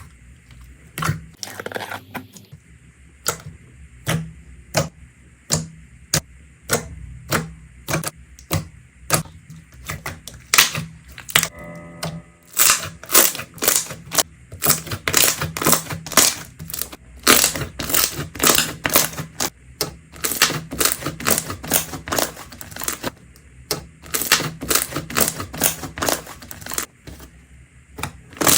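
Slime being worked by hand, giving off a quick series of sharp pops and crackles. They are spaced out at first and come thick and fast from about halfway.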